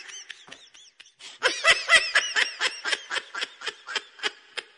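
Laughter: a rapid run of short 'ha-ha' bursts, about five or six a second, starting about a second and a half in after a few faint giggles.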